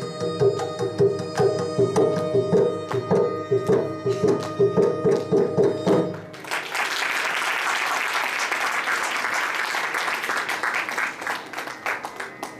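Two violins and a mridangam play the closing bars of a Carnatic piece with steady drum strokes, ending together about six seconds in. Audience applause follows and fades out near the end.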